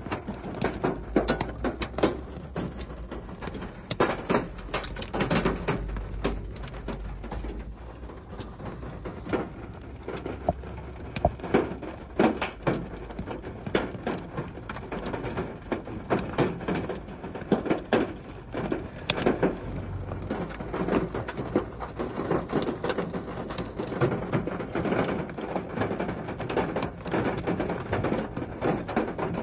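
Hailstorm: hailstones striking hard surfaces in a dense, irregular patter of sharp knocks over a steady hiss of falling precipitation.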